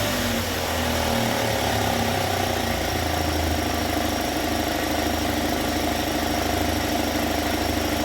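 UAZ Patriot engine idling steadily at operating temperature, settling to an even idle in the first second after being restarted; it runs quietly and evenly, with no knocking.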